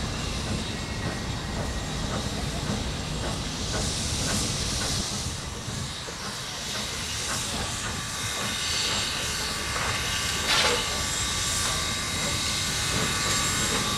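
Canadian Pacific 4-6-2 steam locomotive No. 2317 rolling slowly, with steady hissing of steam from around its cylinders that swells twice, about four and ten seconds in.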